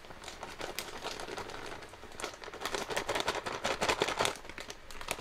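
Plastic bag of dry groundbait crinkling and rustling as the powder is shaken out into a bowl, in a dense run of crackles through the middle.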